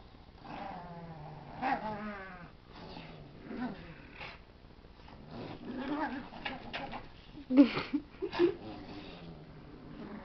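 A pug and a Boston terrier growling and grunting in play as they tug a plush toy between them, in short wavering bouts with a few louder sudden sounds about three-quarters of the way through.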